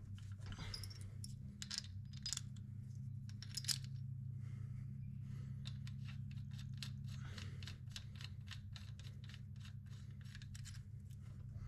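Small, irregular metal clicks and taps as lug nuts are handled and threaded by hand onto an aluminium wheel spacer's studs on a side-by-side's wheel hub. A steady low hum runs underneath.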